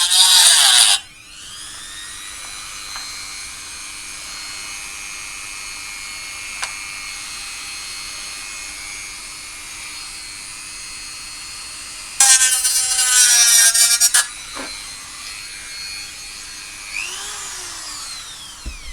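A small high-speed power tool running steadily. It bites loudly into material twice, for about a second at the start and again for about two seconds around twelve seconds in. Its pitch falls away near the end as it spins down.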